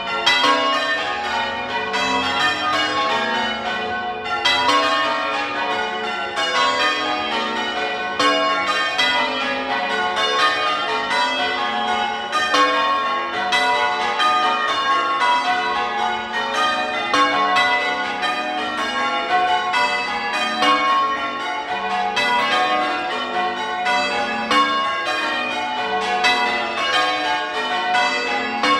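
Church tower bells change ringing: the bells strike one after another in a steady, unbroken run of rounds and changes.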